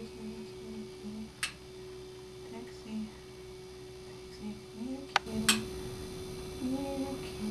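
A steady electric hum, broken by a few sharp clicks of a table lamp's switch as the light is turned off and on, one about a second and a half in and two close together a little after five seconds.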